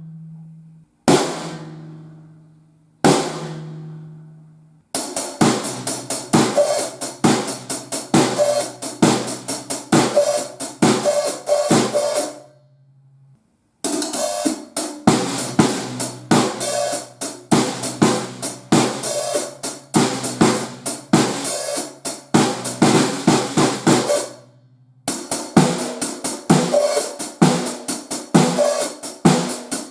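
Drum kit fitted with Evans Hydraulic drumheads: two single drum hits about two seconds apart that ring out, then grooves on the drums with hi-hat and cymbals, which stop briefly twice, about halfway through and again near the end.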